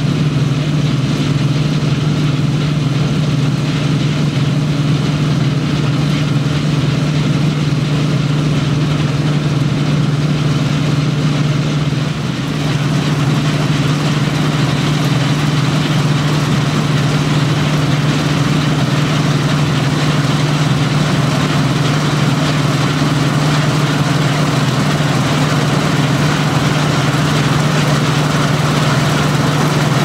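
Claas Dominator 85 combine harvester running steadily under load while cutting grain: a constant low engine hum with the whir of the threshing and cutting machinery.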